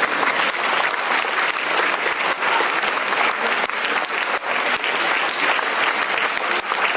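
Theatre audience applauding, a dense, steady clapping of many hands.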